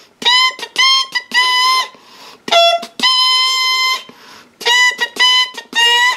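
Music: a trumpet-like lead instrument playing a phrase of short notes and longer held notes, mostly on the same pitch, with brief gaps between them.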